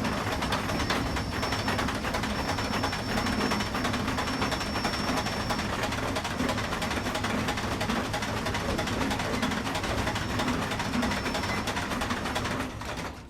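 Steam crane running steadily: a dense, continuous mechanical clatter with a pulsing low rumble, dropping away just before the end.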